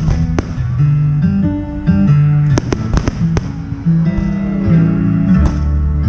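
Guitar-led music playing steadily, with several sharp fireworks bangs over it, a quick cluster of them in the middle.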